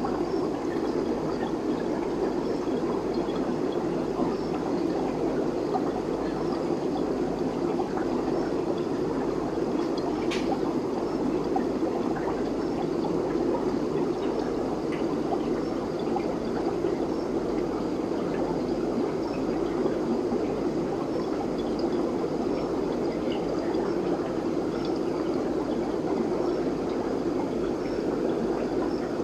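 Aquarium aeration bubbling and water flowing, a steady dense rush that never changes. One small click comes about ten seconds in.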